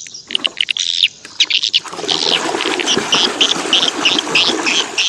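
Water splashing and sloshing as a muddy toy vehicle is washed by hand in a basin, settling about two seconds in into a quick rhythm of about three splashes a second.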